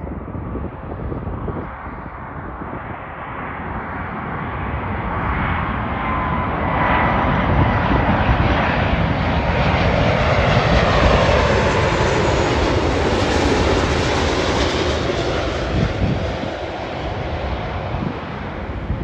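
Airbus A330 jet airliner on final approach passing low overhead: the engine whine and rush build to a peak about halfway through, with whining tones falling in pitch as it goes by, then ease off as it heads away toward the runway.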